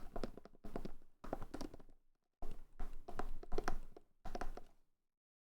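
Several short bursts of thuds and taps, like objects being handled and set down on a desk, each cut off sharply.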